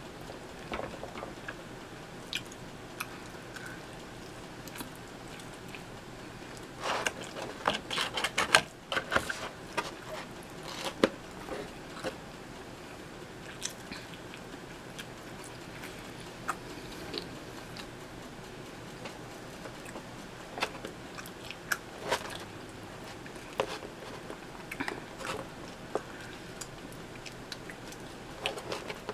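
Close-miked eating of sausage and pepperoni pizza: scattered mouth clicks and chewing, with a denser run of crunchy bites about seven to nine seconds in.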